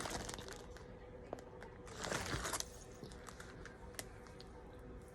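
Small plastic Lego pieces clicking and tapping as they are handled and fitted, with a crinkling rustle about two seconds in.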